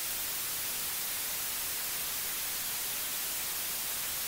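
Steady hiss of static, an even white-noise rush that is brightest in the highs and starts suddenly.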